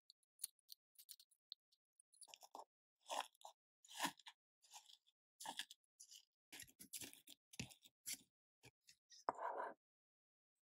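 Buttery crushed Marie-biscuit crumbs crunching in a metal cake tin as a metal spoon presses them down flat for a cheesecake base, in short irregular crunches with a longer one near the end.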